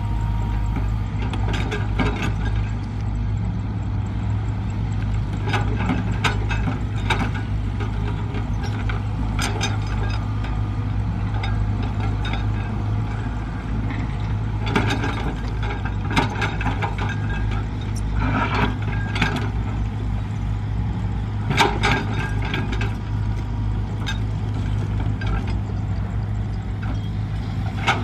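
Hitachi crawler excavator's diesel engine running steadily under digging load, with frequent sharp clanks and knocks from the bucket, boom linkage and steel tracks as it digs and swings soil.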